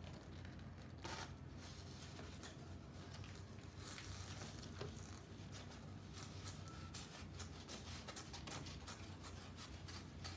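Soft paper rustling, scraping and light clicks from a paper shadow puppet and its wire rods being moved behind a paper screen, busiest in the second half, over a steady low hum.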